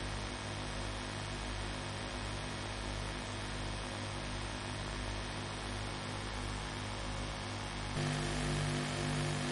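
Steady electrical mains hum with hiss on the recording, with no speech. About eight seconds in, it gets louder as a strong steady low tone comes in.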